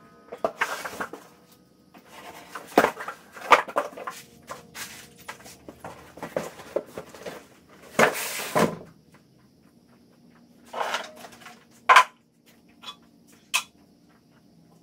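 Large cardboard shipping box being handled, folded and carried away: rustling and scraping of cardboard with scattered knocks and clunks, including a longer scraping stretch about eight seconds in and a sharp knock about twelve seconds in.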